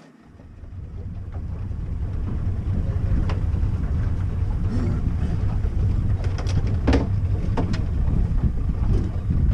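Steady low rumble of a moving fishing boat, its motor running under wind buffeting the microphone. It swells over the first couple of seconds and then holds, with a few faint short knocks.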